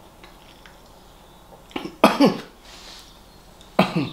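A man coughing: a short double cough about two seconds in, then another cough near the end.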